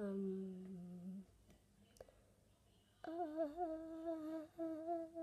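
A child humming with closed lips: a low hum for about a second at the start, then, about three seconds in, a higher hummed line that wavers in pitch, with a brief break partway through.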